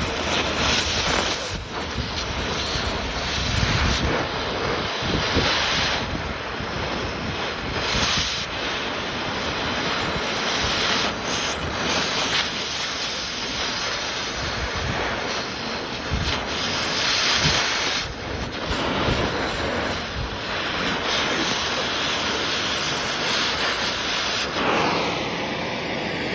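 Oxy-acetylene cutting torch running with a steady hissing rush as it cuts through the steel of a FEG PA-63 pistol, swelling louder every few seconds. A faint whistling tone comes in near the end.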